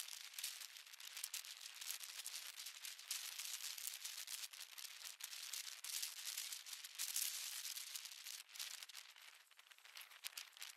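Faint, crackly hiss of wind rushing over the microphone of a camera riding along at speed, dipping quieter near the end.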